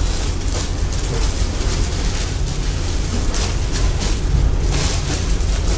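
Áo dài fabric rustling as it is unfolded and handled close to the microphone, in several short swishes over a steady low rumble.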